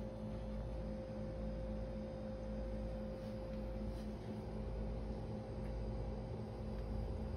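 A steady electrical hum: a constant mid-pitched tone over an evenly pulsing low drone. No meowing is heard.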